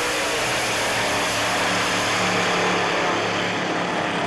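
Two dragsters making a side-by-side pass down the drag strip, heard from the grandstand: a loud, steady wall of engine noise with a low drone underneath.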